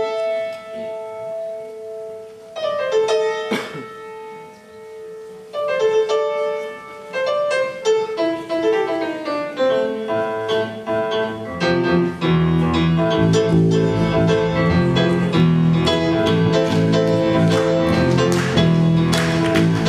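Live grand piano playing a slow introduction, a few held chords at first, growing busier; from about twelve seconds in a steady low bass line and fuller band accompaniment join.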